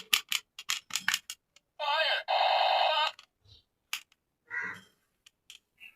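Rapid plastic clicking, then an electronic toy sound effect about two seconds in that holds steady for about a second, followed by a few softer clicks.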